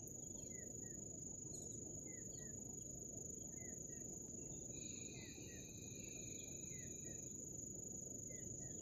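Faint outdoor evening ambience: a steady high-pitched insect trill, such as crickets, with short falling bird chirps, often in pairs, every second or so, over a low even background hiss. A second, lower held tone joins for a couple of seconds midway.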